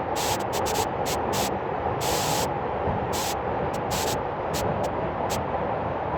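Waterfall pouring steadily: a dense, even rush of falling water, with brief sharper spurts of hiss now and then.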